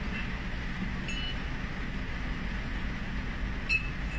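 A steady low engine rumble heard from inside a vehicle, with a short click about a second in and a louder one near the end.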